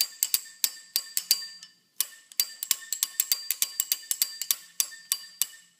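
A slide-hammer puller, threaded into the pressed-in end cap of a barbell sleeve, clanks against its stop again and again, about three or four ringing metal clinks a second, with a short pause about two seconds in. Each tap works the pressed-in cap loose from the sleeve.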